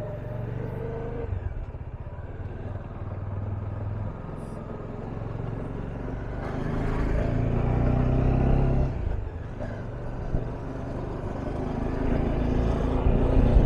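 Motorcycle engine running as the bike is ridden, getting louder about halfway through, easing off briefly, then rising again near the end.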